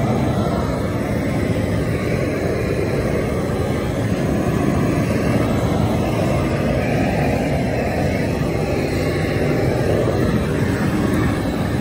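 Hose-fed gas blowtorch burning steadily with a dense, unbroken rushing noise, heaviest in the low range, as its flame singes the hair off an animal carcass.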